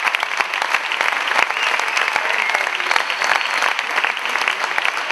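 Audience applauding steadily: dense clapping, with a few brief high calls over it.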